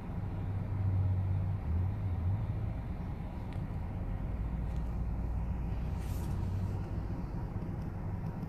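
Car engine and road noise heard from inside the cabin while driving slowly: a steady low hum, with a short hiss about six seconds in.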